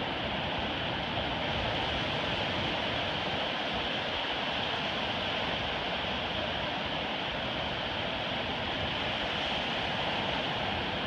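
Ocean surf breaking offshore and washing up the beach, a steady, even wash of noise with no single crash standing out.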